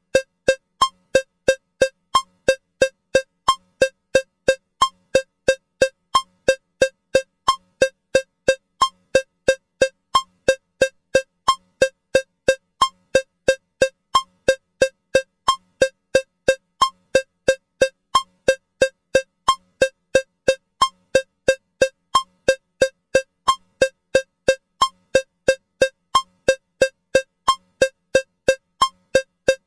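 Metronome with a cowbell sound ticking steadily at 180 beats per minute, three strikes a second, counted in 4/4 bars.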